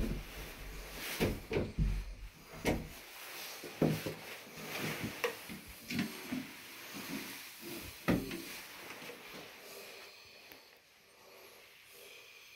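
Several sharp knocks and clicks at uneven intervals over the first eight seconds or so, with a low rumble near the start, then only faint room sound.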